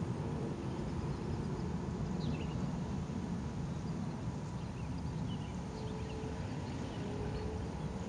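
Steady low outdoor rumble, with a few faint short bird chirps over it.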